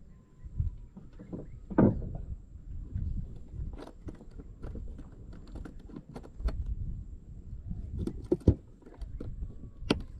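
Irregular clicks, taps and knocks over a low rumble, with a few louder knocks about two seconds in and near the end: handling noise aboard a small fishing boat.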